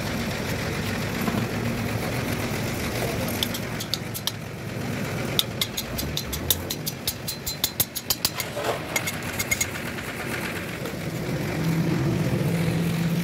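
Hammer tapping a tapered roller bearing down onto a differential carrier hub: a rapid series of sharp metal taps, several a second, starting about five seconds in and lasting about four seconds, over a steady engine hum.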